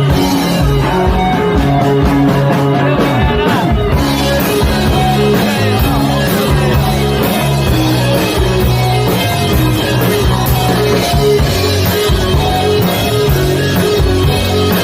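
Rock music with electric guitar and drums, loud and steady, with a fuller band coming in about four seconds in.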